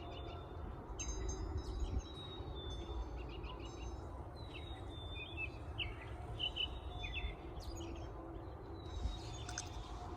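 Distant outdoor warning sirens sounding faintly as a steady tone that swells and fades, with songbirds chirping over it.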